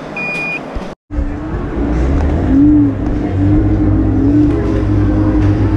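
A short high beep, then, after a brief break in the audio, an electric scooter's motor whining over a steady low rumble, its pitch rising and falling again and again as the speed changes.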